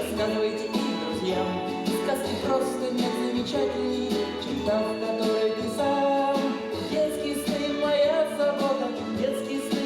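Song from a stage musical: singing over instrumental accompaniment.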